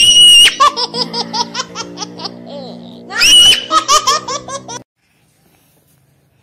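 A small child shrieking with laughter: a high squeal followed by rapid bursts of giggling, twice over, over low background music. It cuts off abruptly about five seconds in.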